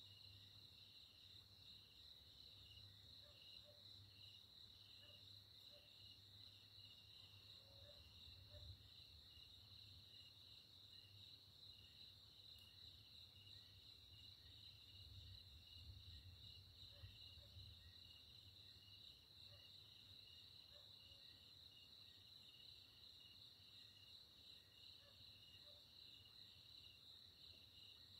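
Faint night insects chirping steadily, a continuous high drone with a quick pulsing beat. Under it a low distant thunder rumble swells and fades about halfway through.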